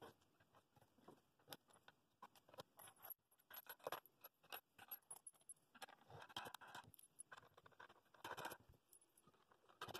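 Faint clicks, scrapes and light metallic rattles of small hardware being handled: washers and nuts set on the threaded rods of a wooden glue press, with wooden clamp blocks knocking lightly.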